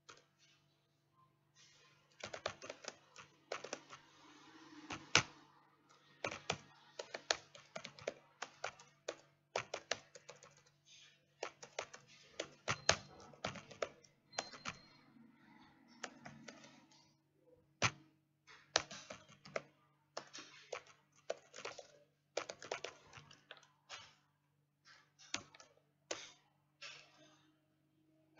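Typing on a computer keyboard: irregular runs of keystroke clicks with short pauses between them, over a faint steady low hum.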